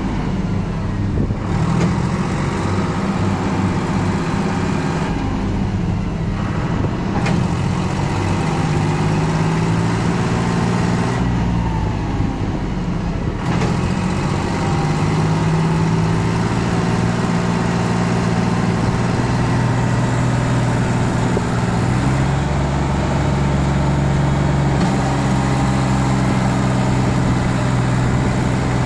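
John Deere 5310 tractor's three-cylinder diesel engine running as it pulls a trailer heavily loaded with sugar cane. The engine note shifts up and down a few times.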